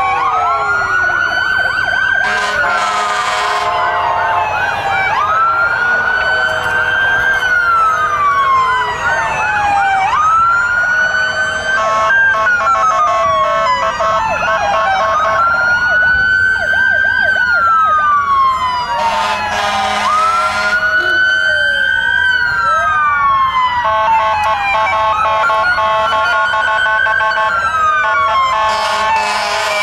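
Several fire truck sirens sounding at once. Slow wails rise and fall over a few seconds each and overlap with fast yelping warbles and long steady blasts, with a few brief loud noisy bursts mixed in.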